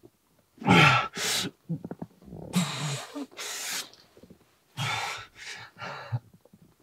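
A person breathing hard in ragged, gasping breaths with a little voice in them, in three bursts about two seconds apart.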